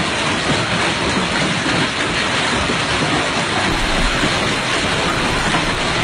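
Hailstones falling hard on pavement and parked cars, a dense, steady noise without a break.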